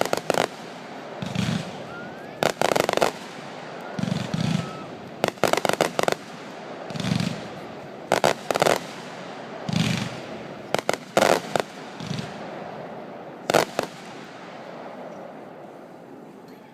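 Fireworks going off in quick succession: again and again a deep thud followed by sharp cracking bangs, roughly one every second and a half. The barrage stops about three seconds before the end.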